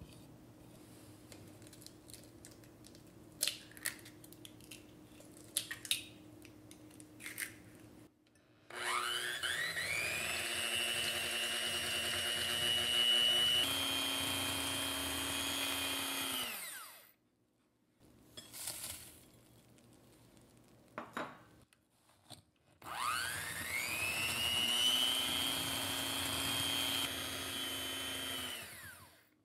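Electric hand mixer whisking whole eggs and sugar in a glass bowl, beating them to a pale, fluffy foam for a sponge cake. It runs twice: each time its whine rises as it spins up, runs steadily for several seconds, then falls away as it is switched off, and during the first run it steps up once in pitch. Before that there are a few light taps and clicks.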